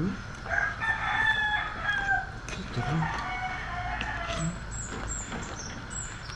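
A rooster crowing, a long pitched call starting about half a second in, over the bubbling of a pot at a rolling boil and a few knocks of a metal ladle against the pot.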